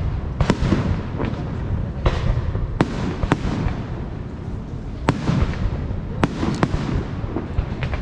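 Aerial fireworks display: about nine sharp bangs of shells bursting at irregular intervals, some in quick succession, over a continuous low rumble and crackle.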